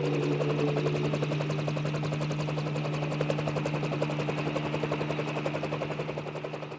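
Background music: a held low drone under a fast, even pulsing, fading out toward the end.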